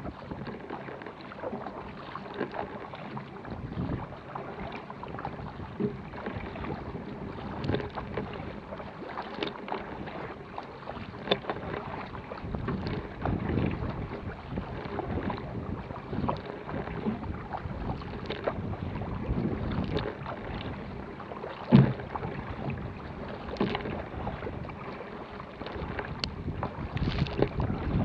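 Paddle blades of a Vajda Supersonic K1 racing kayak catching and pulling through choppy water in a steady stroke rhythm, with water splashing and washing along the hull. One splash about three quarters of the way through is louder than the rest.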